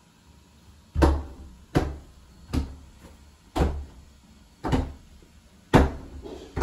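A Ragamuffin cat bumping against a door panel as it rolls and rubs on the floor: about seven dull knocks, roughly one a second.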